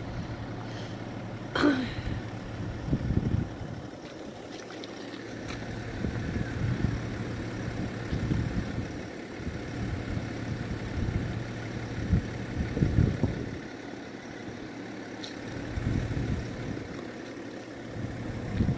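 A car engine idling with a low steady hum, while wind buffets the microphone in repeated gusts.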